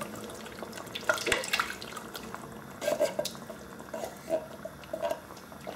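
Thick coconut milk being scooped out of a can with a wooden spoon into a stainless steel wok: scattered scrapes and knocks of the spoon against the can, with wet plops as dollops drop into the liquid.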